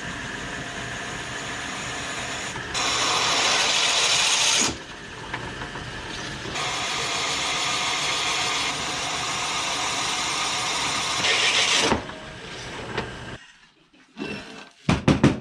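Bench drill press running, its half-inch bit cutting into an old Volkswagen brake drum through a bronze drill bushing. The cutting gets louder in two stretches, about 3 to 5 seconds in and again from about 6.5 to 12 seconds. The press then winds down, and a few knocks follow near the end as the drum is moved.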